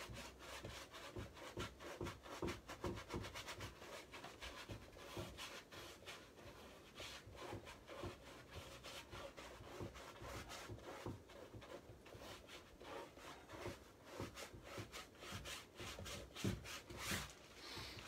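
Paintbrush scrubbing paint onto a stretched canvas: a faint rubbing scrape repeated in quick strokes, several a second.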